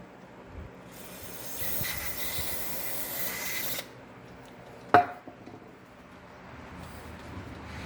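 A hissing spray for a little under three seconds, cutting off suddenly, followed about a second later by a single sharp metallic clink.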